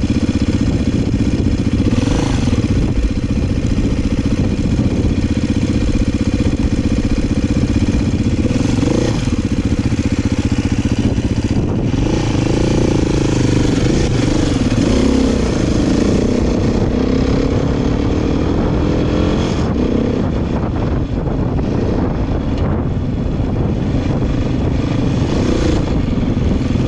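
Dirt bike engine running on a trail ride, its pitch repeatedly rising and falling with the throttle.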